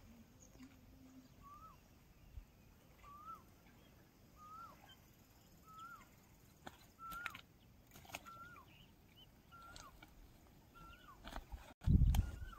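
A bird calling a short rising-then-falling note over and over, about once a second, with a loud low thump near the end.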